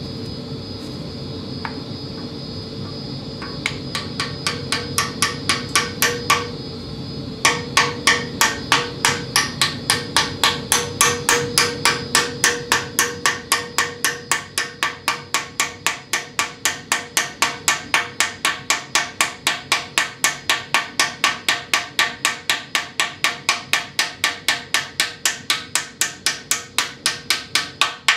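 Small hammer tapping the oil pump gear into a Ford flathead V8 block, metal on metal, driving the gear home. Light, evenly spaced taps start a few seconds in, pause briefly, then run on steadily at about three a second.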